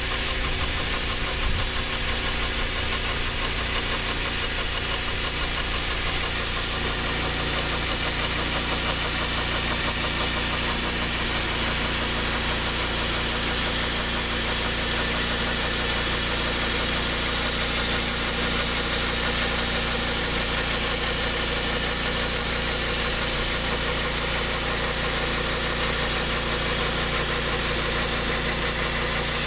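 Portable sawmill's petrol engine running steadily at constant speed, with a continuous high hiss over it.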